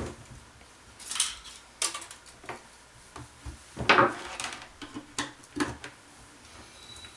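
Scattered knocks and clicks of handling: the plastic housing of a partly disassembled flat-panel monitor set on edge against a wooden workbench, and a screwdriver handled among them. The loudest knock comes about four seconds in.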